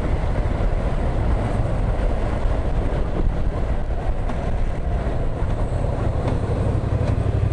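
Yamaha MT-07 motorcycle's parallel-twin engine running as the bike rides along, heard as a steady low rumble with a rushing haze over it. The rumble grows a little stronger near the end.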